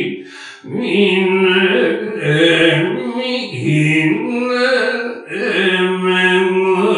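Noh chant (utai): a voice singing long, drawn-out syllables with slow shifts in pitch, breaking off briefly about half a second in.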